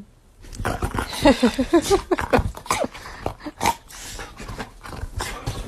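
A dog vocalizing in a quick run of short, whiny rising and falling cries, thickest in the first half, mixed with clicks and knocks.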